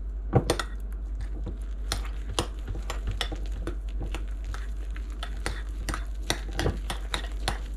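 A metal utensil stirring whipped topping and pepper jelly in a glass bowl, clinking and scraping against the glass several times a second in an uneven rhythm.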